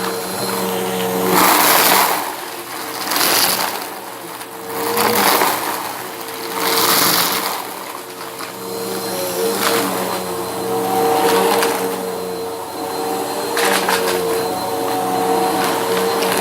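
Bissell vacuum cleaner running with a steady motor hum, its brushroll crunching through debris in loud bursts every few seconds.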